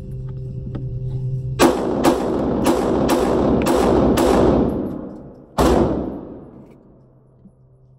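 Glock 19 9mm pistol firing six rapid shots, about half a second apart, with heavy echo from the indoor range, then one more shot about a second and a half later.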